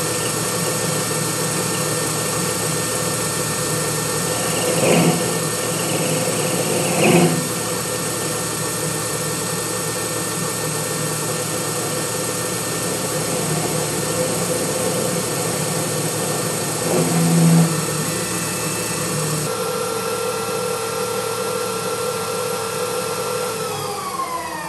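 Benchtop CNC lathe running with a steady spindle whine while the tool cuts the spinning steel-or-aluminium pull stud, with three short louder spells of cutting noise. Near the end the spindle winds down and its whine falls in pitch.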